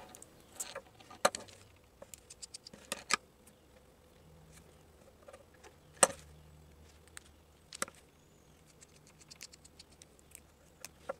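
Small Phillips screwdriver backing the tiny screws out of small plastic RC servo cases: scattered light clicks and ticks of driver, screws and plastic, with a few sharper taps.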